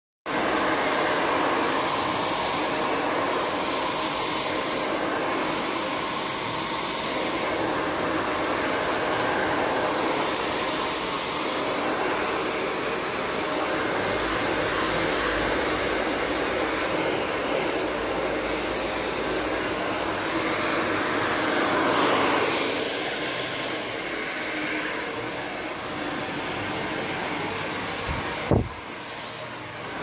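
Handheld hair dryer blowing steadily, with one brief thump near the end.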